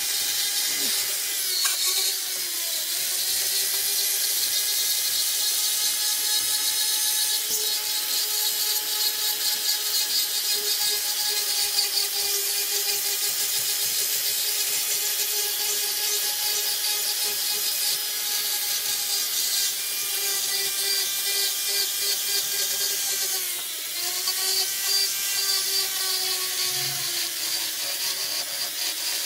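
Foredom flex-shaft rotary tool running with a Saburrtooth carbide burr sanding a catalpa wood carving: a steady motor whine over the hiss of the burr on the wood. The whine dips in pitch briefly about two seconds in and again about three-quarters of the way through, as the burr is pressed into the wood.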